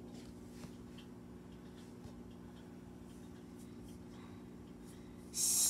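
Faint scratching and handling noise of small plastic toy figures being moved about on a floor, over a steady low hum. A loud rustling scrape starts near the end.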